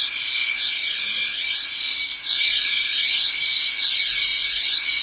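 A long, steady hiss made with the mouth into a studio microphone, while a small thin mirror is moved up and down close by. The reflection off the mirror causes comb filtering, heard as a flanging sweep that rises and falls about once a second.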